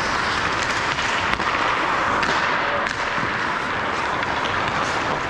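Steady hiss of game ambience in an ice rink, with scattered sharp clicks and taps from skates and sticks during a hockey game.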